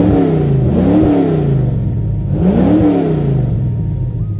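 Ford GT40 replica's V8 engine free-revved in three throttle blips, the pitch climbing and falling each time, then dropping back to idle near the end.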